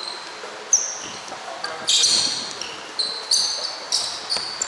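Pickup basketball on an indoor hardwood court: sneakers giving a string of short, high squeaks as players cut and stop, with a basketball bouncing.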